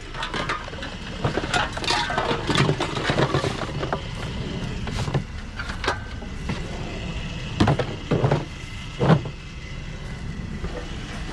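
Scrap items being handled and moved: scattered clatter, knocks and rustling, with a few louder thumps after about seven and a half seconds.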